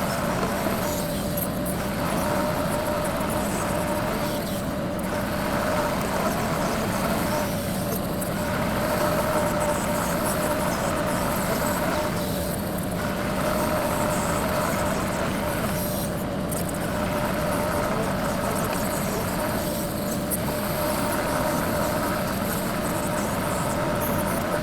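TYM 2515H compact tractor's diesel engine running steadily at low throttle while its backhoe digs, easing off and picking up a little every few seconds.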